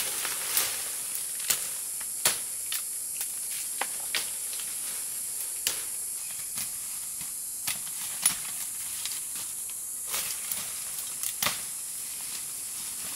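A steady high hiss with irregular sharp clicks and knocks scattered through it, a few louder snaps among them.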